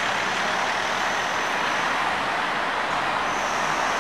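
Steady city street traffic noise: an even hiss of passing cars, with a car driving past close by.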